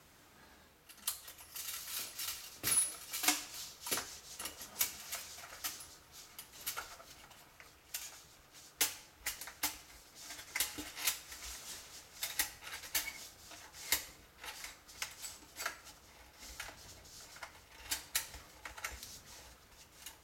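Long coiled steel magazine spring of a Beretta A391 Xtrema 2 semi-automatic shotgun being pushed into its tubular magazine, with irregular metallic clicks and clinks as the coils go in.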